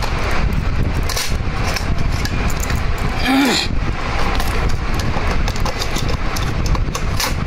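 Clicks and clatter of a National Panasonic 543 radio cassette recorder's cassette door being opened and a cassette being handled into the deck, over a steady, noisy rumble.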